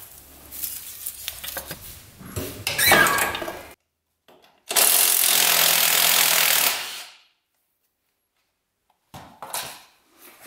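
Metal clinks and clatter of tools on parts, then a power tool runs loudly and steadily for about two seconds in the middle and cuts off suddenly, followed by a few more clinks near the end, as the front differential is worked loose from an ATV.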